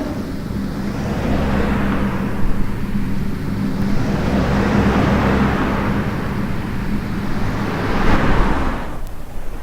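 Whooshing rush-of-air sound effect swelling and fading about three times over a steady low hum, dropping away sharply near the end.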